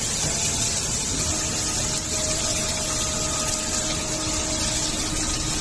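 Automatic stir-fry cooking machine running: a steady hiss of ingredients frying in its hot pot, with a faint, steady motor hum from the stirring drive.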